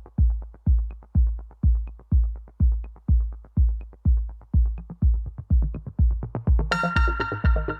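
Electronic background music: a steady deep kick drum about twice a second, with a bright synth and cymbal layer coming in near the end.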